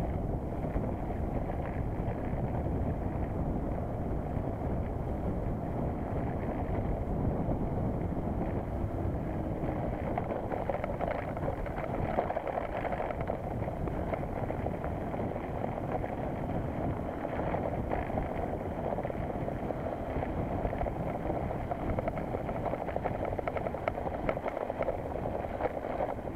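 Mountain bike descending fast on a loose gravel road: a steady rush of wind over the camera's microphone mixed with tyres grinding over gravel and small rattles from the bike on the rough surface.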